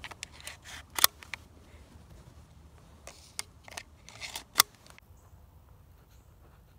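Handling noise close to the microphone: a run of sharp clicks and short rustles, the loudest about a second in and again shortly before it stops, about five seconds in.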